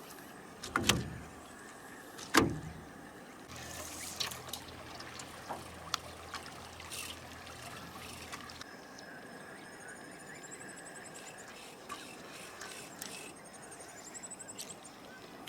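Two heavy knocks in the first few seconds, like gear or feet knocking against a boat hull. After them come a faint low hum and scattered small clicks. In the second half a bird sings two short warbling phrases.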